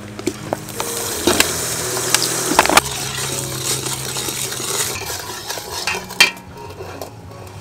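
Bubbling sauce sizzling in an aluminium pot while a metal ladle stirs it, with sharp clinks of the ladle against the pot. The sizzle eases off about six seconds in, just after the loudest clink.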